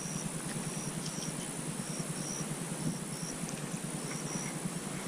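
Insects outdoors: a steady high-pitched drone with short chirps repeating over it about every half second, above a faint low rumble.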